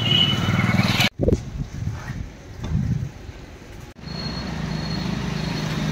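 Street background noise with a steady low hum of traffic, breaking off abruptly twice.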